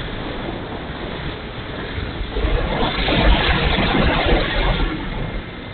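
Onboard sound of an RC model Hawker Hurricane in flight: its motor and propeller under a steady rush and low buffeting of wind on the wing-mounted camera's microphone. The rush swells from about halfway through and eases near the end.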